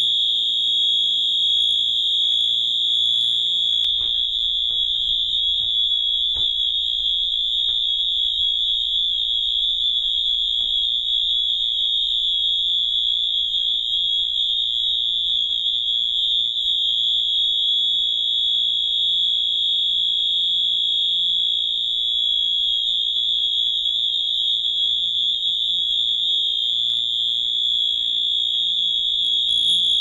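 Simplex TrueAlert fire alarm sounding a continuous, steady, high-pitched tone without breaks.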